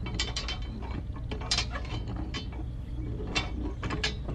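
Small mechanism clicking and clattering irregularly, with a steady low hum underneath.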